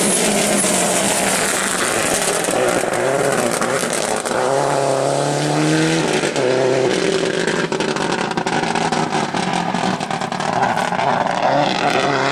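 Subaru Impreza N4 rally car's turbocharged flat-four engine at full throttle, its pitch climbing, dropping at upshifts and climbing again.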